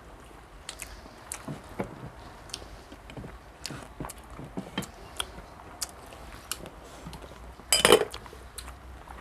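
Spoons and other eating utensils clinking and tapping against plates and bowls during a meal, in short irregular knocks. One louder, brief noise comes about eight seconds in.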